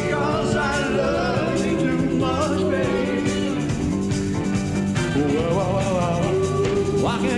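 Live rock-and-roll band music from a concert recording, with a wavering vocal line over a sustained band backing.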